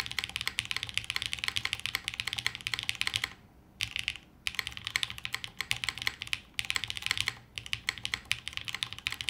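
Fast typing on a plateless Martingale custom mechanical keyboard with Gateron Summertime linear switches and GMK ABS keycaps: a dense stream of keystrokes that stops briefly a little after three seconds in and again just after four, with a couple of shorter gaps later.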